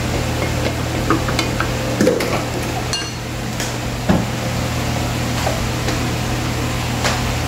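Wooden spatula stirring food in a stainless steel pot and knocking against its side, a few sharp knocks spread through, over a steady low hum.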